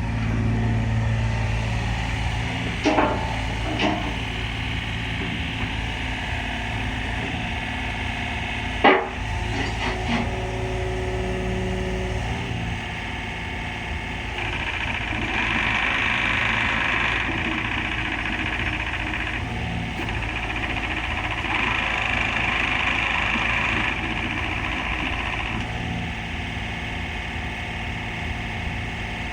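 Takeuchi TB230 mini excavator's diesel engine running steadily, with a few sharp metallic knocks in the first ten seconds. Twice, for a few seconds each, a louder rushing, hissing sound rises over the engine.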